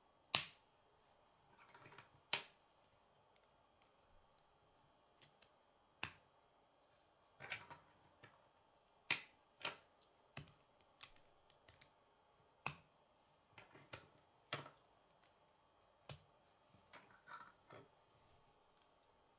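K'nex plastic rods and connectors being snapped together by hand: sharp, irregular clicks, well over a dozen, with soft plastic handling rattle between some of them.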